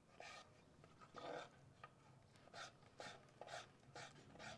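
Kitchen knife slicing zucchini into thin sticks on a wooden cutting board: faint, uneven cuts, about two a second.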